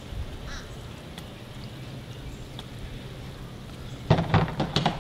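Steady low outdoor background rumble, with no clear sound from the syrup pouring. About four seconds in, a sudden burst of loud clattering and knocks comes from handling things at the table.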